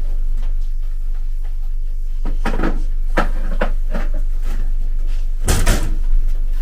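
Tableware and food being handled at a kitchen table: a quiet stretch, then a cluster of light knocks and clicks a little past two seconds in, and one brief louder noise near the end, over a steady low hum.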